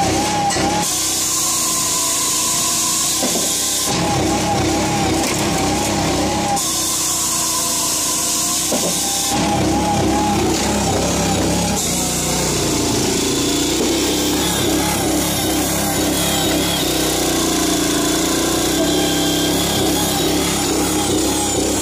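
Japa 235 firewood processor running on its small combustion engine, its saw cutting through logs in spells of a few seconds, with the engine note wavering in the short gaps between cuts.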